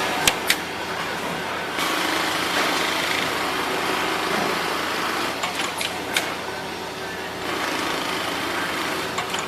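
Mitsubishi PLK-G6030 programmable industrial pattern sewing machine running, a steady mechanical whir with a few sharp clicks near the start and again about halfway through.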